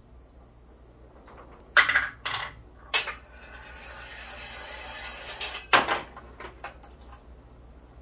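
Steel slingshot balls striking a metal-cabinet catch box, with several sharp clanking impacts. Between about three and five and a half seconds in there is a rising rolling rattle, and a few lighter metallic clinks near the end.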